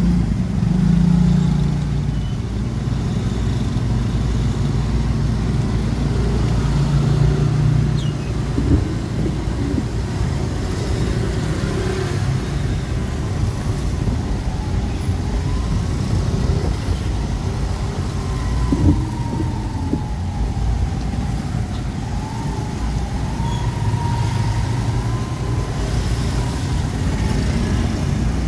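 Steady low rumble of slow-moving traffic and the car's own engine and tyres on a wet road, heard from inside the car. A faint wavering whine rises and falls from about 15 to 23 seconds in.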